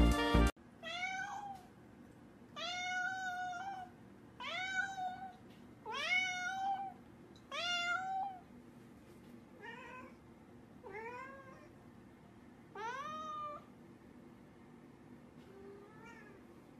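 Calico cat meowing repeatedly at a closed door, asking for it to be opened. There are about nine long meows, each rising then held, one to two seconds apart, and they grow fainter after the first half.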